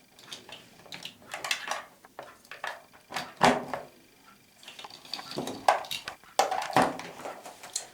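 Hard utensils and containers being handled and set down: an irregular run of clinks and knocks, the loudest about three and a half seconds in and again near the end.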